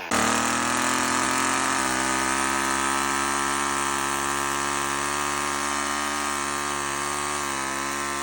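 Homelite Super 2 two-stroke chainsaw catching suddenly and running at a steady fast idle, its pitch stepping down slightly about two seconds in. Near the end the engine note sinks and fades, as the freshly fuelled old saw fails to stay running.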